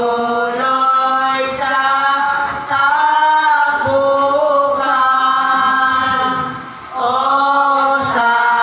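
A group of voices singing gozos, a Filipino devotional hymn to a saint, in long held notes that move step by step, with a brief pause for breath a little before the end.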